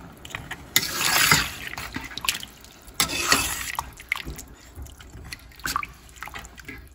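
Steel ladle stirring mutton pieces through thin masala broth in a stainless-steel pressure cooker: the liquid sloshes and splashes, loudest about a second in and again about three seconds in, with short clinks of the ladle against the pot.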